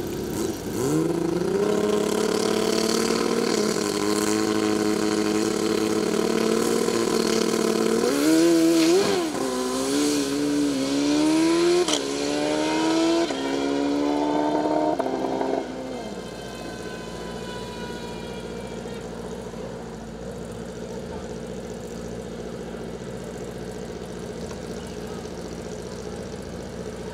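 Drag-racing motorcycle engine revving hard. It climbs to high revs and holds there for several seconds. Then it rises in pitch several times, dropping back sharply each time, and cuts off about halfway through. A lower, steady engine sound continues afterwards.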